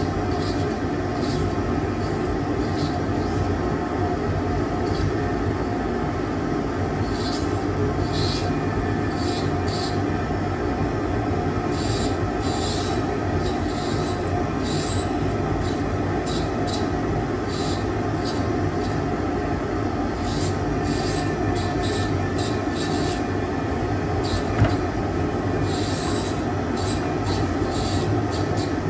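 Dental lab rotary handpiece spinning a thin cutting disc against pre-sintered Katana zirconia: a steady motor whine and hum, broken by short, irregular high-pitched scratchy squeals each time the disc bites into the material. One sharp click sounds late on.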